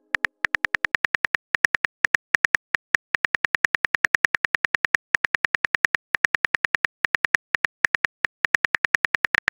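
Simulated phone-keyboard typing clicks of a texting app: a quick run of short, identical clicks, about six a second, broken by a few brief pauses.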